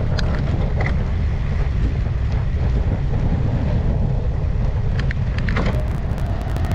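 Wind buffeting the microphone of a camera on a moving bicycle, a steady low rumble, with a few light clicks about five seconds in.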